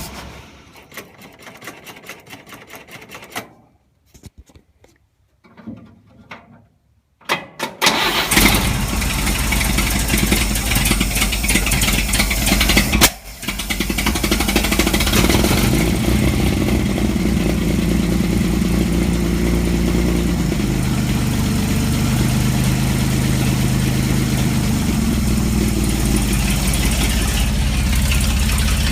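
Vehicle engine started after a few quiet seconds with scattered clicks: it catches about eight seconds in, falters briefly a few seconds later, then settles into a steady idle.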